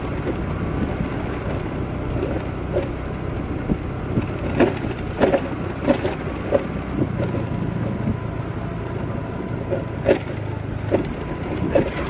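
Scooter riding along a rough village lane: its small engine runs steadily under road and wind noise. A scattered string of sharp rattles and knocks, about seven in all, comes mostly in the second half.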